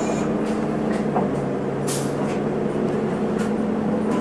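Isuzu Erga city bus's diesel engine running steadily, with a brief sharp click about two seconds in.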